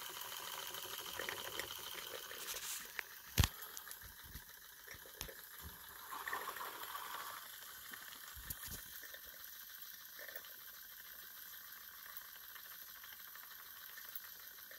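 Live-steam model traction engine running smoothly under about 10 psi, a soft steady hiss with light mechanical rattling. A sharp click comes about three and a half seconds in.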